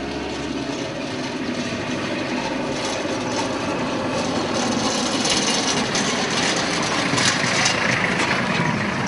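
An SUV driving up a dirt road toward the listener and passing close: engine and tyres on gravel, growing louder as it nears and loudest about seven to eight seconds in.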